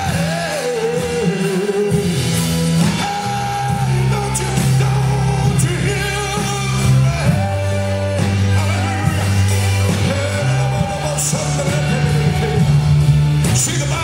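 Live church praise band playing with a man singing a wavering, drawn-out melody over held bass chords that change every few seconds, with drums and cymbal strikes.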